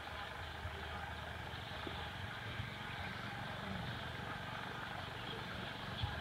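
A steady low engine hum, with a few faint short ticks.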